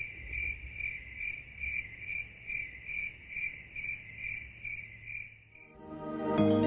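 Cricket chirping sound effect, the comic "crickets" for a dull moment: a steady high trill pulsing about two and a half times a second. Music fades in near the end.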